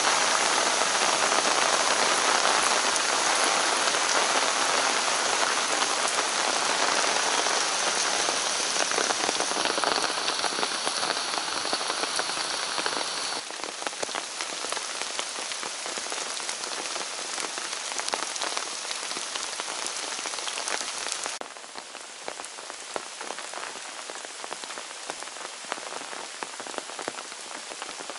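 Steady rain falling on forest foliage, a dense patter of raindrops. The rain gets abruptly quieter about halfway through and again near three quarters of the way in.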